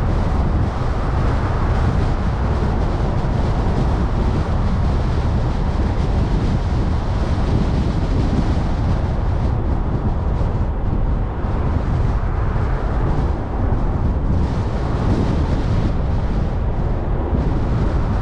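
Steady driving noise of a car on the road: tyre rumble and rushing wind, even throughout.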